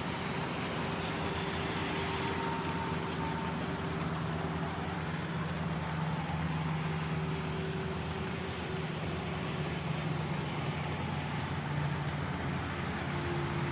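A vehicle engine running with a steady low hum under a constant hiss of rain and wet-road noise.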